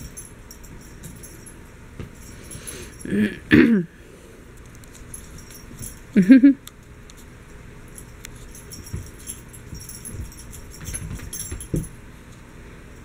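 Maine coon mix cat meowing: a bending call in two parts about three seconds in and a short one just after six seconds, with faint scattered clicks from play with the toy.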